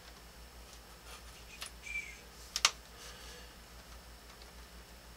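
A few light clicks and taps of a plastic drafting scale and pencil against a drafting table's parallel bar as the scale is shifted and distances are marked. The loudest click comes about two and a half seconds in, with a short squeak just before it, over a steady low hum.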